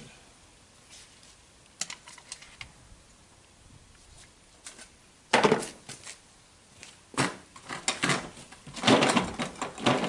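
Metal compression-tester fittings and hand tools clinking and clattering as they are handled and swapped. There are a few light clicks at first, then a series of louder, sharp metallic clatters from about halfway on.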